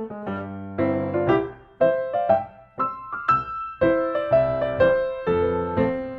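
Background piano music, notes and chords struck one after another, each ringing and fading.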